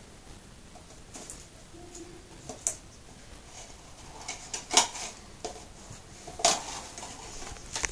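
Scattered light clicks and scrapes, with a few sharper clicks, the loudest near the middle and again later on.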